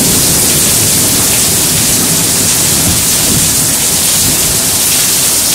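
Heavy rain pouring steadily in a thunderstorm, a loud even hiss, with the low rumble of thunder dying away at the start.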